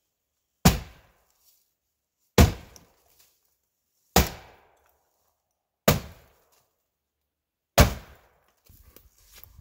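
Five heavy hammer blows against the wall of an old rotted wooden chicken coop, about one every two seconds, each a sharp bang with a short ringing tail.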